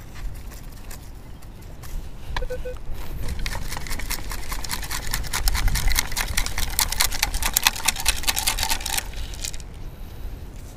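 Sand and small stones rattling and pattering in a metal beach sifting scoop as it is shaken, a rapid rattle from about three seconds in until about nine seconds. A short metal-detector beep comes just before it.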